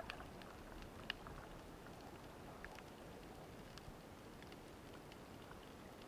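Faint underwater ambience: a steady low hiss with scattered small clicks and crackles, a sharper click right at the start and another about a second in.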